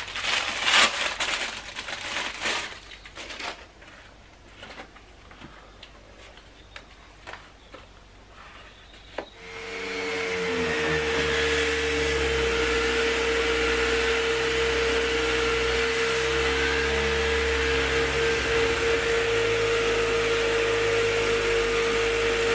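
Random orbital sander with a vacuum dust-extraction hose, switched on about nine seconds in and then running steadily with a constant whine as it sands a bare wooden radio cabinet. Before it starts there are irregular handling noises and clicks.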